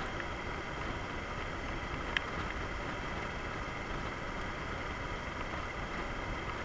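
Steady wind and engine noise of a Yamaha DragStar Classic V-twin cruiser ridden at an even speed, heard from a camera on the bike. A short sharp click about two seconds in.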